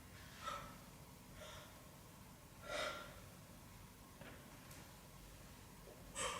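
A person's faint, ragged breaths: about five short gasps at uneven intervals, the loudest a little under three seconds in.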